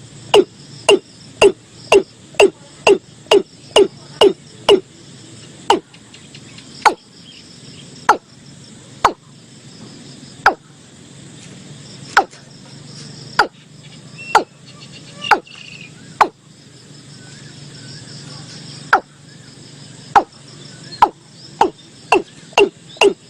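Watercock calling: a long series of short, loud notes, each dropping in pitch, about two a second at first, slowing to about one a second or less in the middle, then quickening again near the end.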